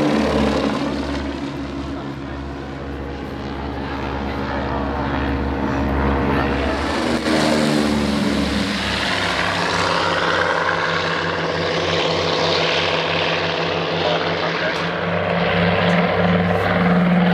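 Piston-engined propeller aircraft flying past. Its engine drone falls in pitch as it goes by near the start and again about seven seconds in, and builds to a steady low hum near the end.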